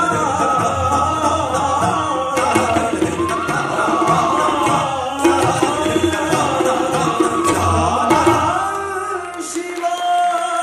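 Live Hindustani accompaniment for Kathak dance: tabla playing under a repeating flute melody (nagma). About eight and a half seconds in, the drumming drops away and the melody carries on alone.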